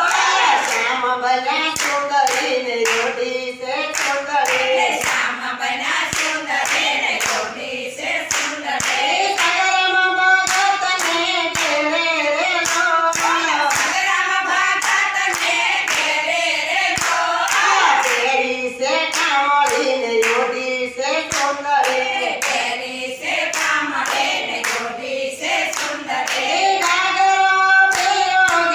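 A group of women singing a Gujarati Swaminarayan devotional kirtan together, one woman leading into a microphone, with steady hand-clapping on the beat.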